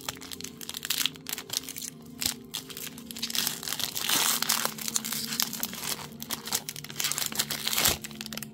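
Foil wrapper of a Pokémon card booster pack crinkling and tearing as it is opened: a dense, irregular crackle of plastic foil, thickest about halfway through and again near the end.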